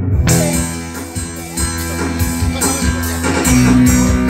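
Live band music led by guitar over a bass line, with drums and cymbals coming in just after the start.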